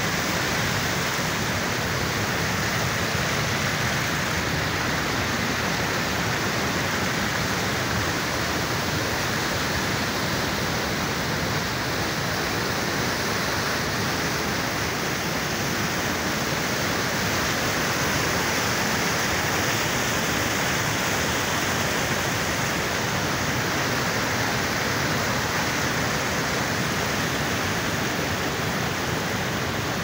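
White water of a mountain stream rushing and splashing over boulders in a cascade: a steady, unbroken rush of water.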